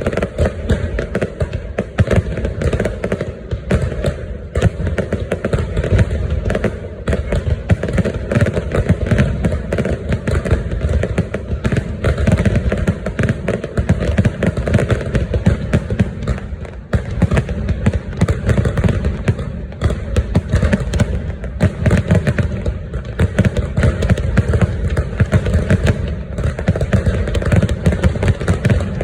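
Fireworks going off in a continuous, dense barrage of overlapping bangs and booms.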